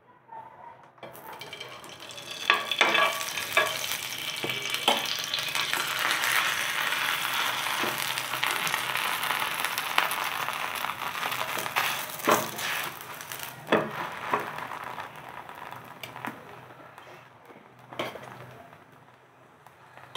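Butter sizzling on a hot nonstick tawa as a kulcha toasts in it, with scattered clicks and knocks against the pan. The sizzle starts about a second in, is loudest midway and dies down toward the end.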